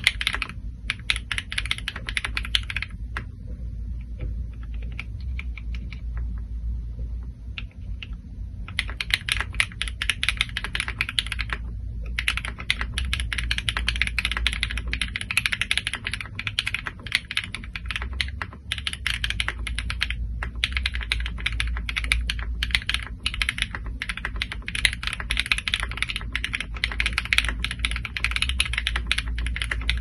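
Typing on a D84 V2 75% gasket-mount custom mechanical keyboard with an aluminium plate and KTT Strawberry linear switches lubed with Krytox 205g0: quick runs of key presses, thinning to scattered presses from about three to nine seconds in, then fast steady typing again.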